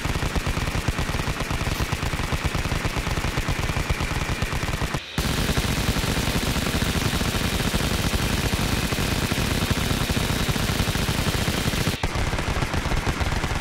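Toy gun's electronic machine-gun sound effect: a rapid, steady stream of gunfire sounds that breaks off briefly about five seconds in.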